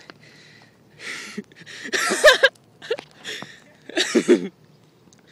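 A person's voice close to the microphone making short non-word sounds, with breathy noise about a second in and two louder bursts about two seconds in and again about four seconds in.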